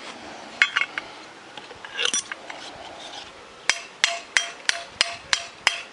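Hammer tapping a socket to drive a new bearing into the oiled seat of a walk-behind tractor's cooling fan; a few scattered knocks, then from about four seconds in a steady run of sharp metallic taps, about three a second, each with a short ring.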